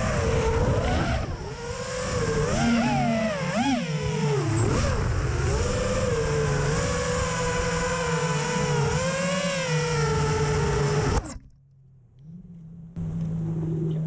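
Astro X5 FPV quadcopter's T-Motor 2305 2400KV brushless motors and props whining, the pitch rising and falling sharply with the throttle. The sound cuts off about 11 seconds in, and after a brief near silence a low steady hum takes over.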